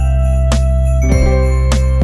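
Background music: an upbeat hip-hop Christmas track with a steady beat, bells and a deep bass.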